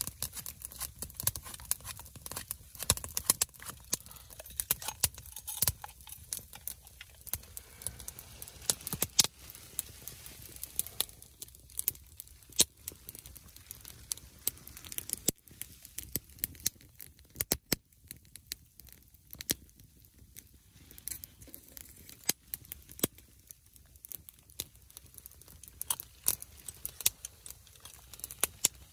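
Wood fire crackling in a folding titanium box stove: irregular sharp pops and ticks, some much louder than others.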